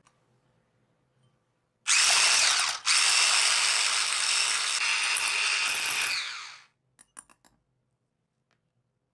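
Electric hand mixer with twin wire beaters whipping cream and sugar in a glass bowl toward stiff peaks. It starts about two seconds in, cuts out for a moment, then runs steadily and winds down after about four more seconds. A few light clicks follow.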